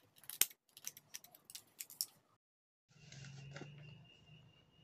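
Scissors snipping the ragged edge off a cut plastic water bottle: a quick run of small sharp snips over about two seconds. After a pause, a brief faint hum with a thin high tone about three seconds in.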